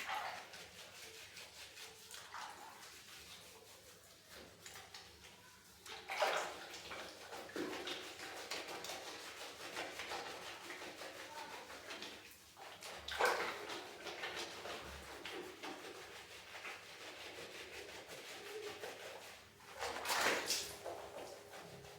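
Water splashing and running during a cat's bath, with three louder surges of splashing about 6, 13 and 20 seconds in.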